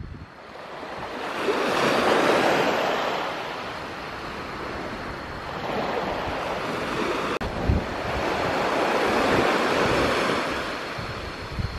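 Small waves washing onto a sandy beach. The surf swells and fades, loudest about two seconds in and again near the end. Now and then wind thumps on the microphone.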